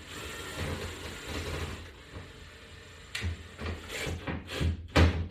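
Toggle-bolt screws and metal wall-mount hardware being handled: rubbing and scraping, then a run of short knocks and clicks from about three seconds in, the loudest one near the end.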